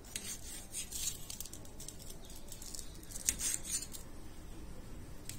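Kitchen knife cutting tomatoes into wedges on a stainless steel plate. The blade gives irregular light clicks and scrapes against the metal, the sharpest about three seconds in.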